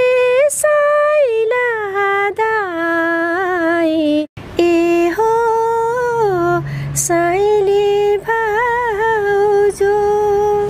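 A woman singing a Nepali people's (janabadi) song unaccompanied, in long held notes that glide and waver, with a short breath about four seconds in.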